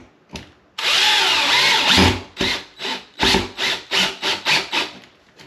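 DeWalt 20V XR cordless drill driving a screw through a light fixture's metal mounting plate into the electrical box: it runs steadily for about a second, then in short pulses, roughly three a second, as the screw is snugged but not fully tightened.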